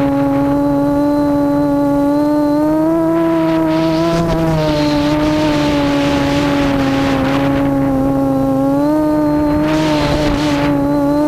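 Quadcopter's Cobra 2213 2000kv brushless motors spinning APC 7x4 props, a steady hum that steps up and down in pitch with throttle, with a few stretches of rushing noise, around four seconds in and near the end.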